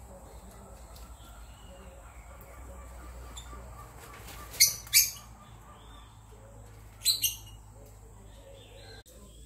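Parrot giving short, loud, shrill calls: two in quick succession about halfway through, then two more a couple of seconds later, over faint background chirping.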